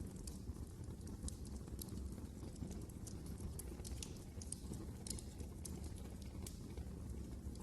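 Wood fire crackling: irregular sharp pops and snaps over a low, steady rumble of the flames.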